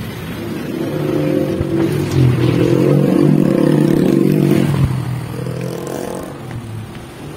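A motor vehicle engine runs with a steady hum. It grows louder over the first two seconds and drops away about five seconds in.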